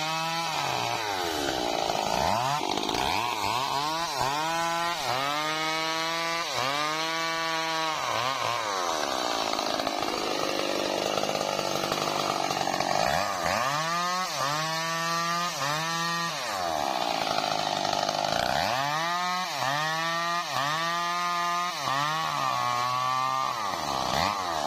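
Stihl MS 382 two-stroke chainsaw cutting a mahogany trunk, its engine revved up and let back down again and again in runs of quick throttle bursts, with steadier stretches between.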